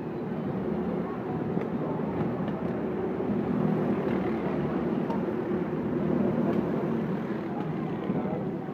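Several racing kart engines running as the pack laps the track, a mixed steady drone that swells as karts pass about four and six seconds in, with crowd chatter under it.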